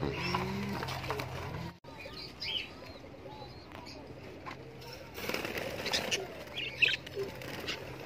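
Budgerigars chirping briefly and fluttering their wings while being moved into a wire aviary, with a burst of flapping and rustling about five seconds in.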